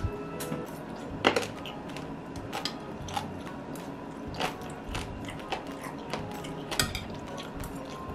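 Metal chopsticks clicking and tapping against a plate while picking through braised seafood, a string of sharp clicks with the loudest about a second in, among close-miked eating sounds.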